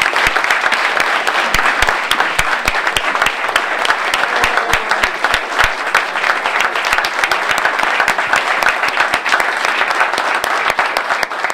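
Applause from a large audience in a hall: many people clapping in a dense, steady patter that cuts off suddenly at the end.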